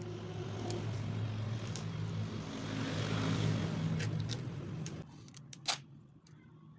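A steady low motor hum with a rushing noise that swells and then stops abruptly about five seconds in, followed by a single sharp click.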